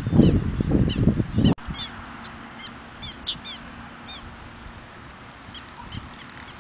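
Birds calling with short, high, downslurred chips, several a second. Low gusty rumble of wind on the microphone for about the first second and a half, cutting off suddenly, then a quieter background with the chips going on.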